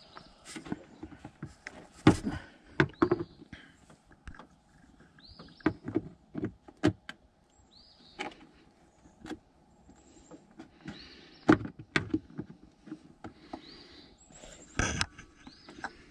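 Plastic push-pin retaining clips being pried out of a radiator shroud with small hand tools: a scatter of sharp clicks, taps and knocks, with louder knocks about two seconds in, near the middle and near the end.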